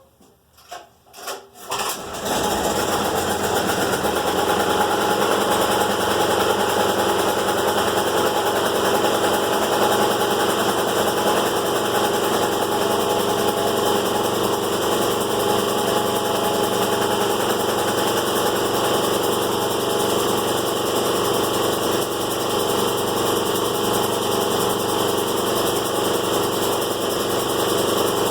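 A few clicks and knocks, then an air compressor starts about two seconds in and runs steadily.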